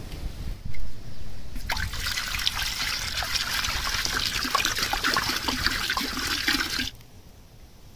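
Water poured in a steady stream from a jug into an earthenware cooking pot, splashing into the water already inside; it starts about two seconds in and stops suddenly near the end. Before the pour there is a low thump just under a second in.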